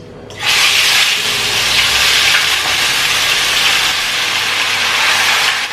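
Spice-marinated chicken sizzling loudly as it is ladled into hot oil in a kadai. The hiss starts suddenly about half a second in and stays steady.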